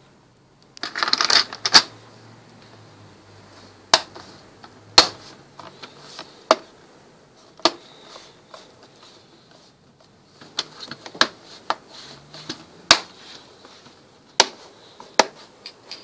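Snap-fit clips of an HP Envy Rove all-in-one's plastic back cover clicking into place as the cover is pressed down by hand: about ten sharp clicks at irregular intervals, after a short clatter of the cover being set on about a second in. The clicks are the sign that the cover is latching fully closed against the screen with no gaps.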